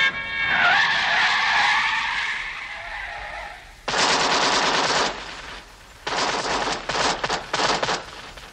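Film soundtrack gunfire: after a loud rushing noise that fades over about three seconds, a machine gun fires rapid bursts, one of about a second about four seconds in and another about two seconds later, followed by a few short, separate shots.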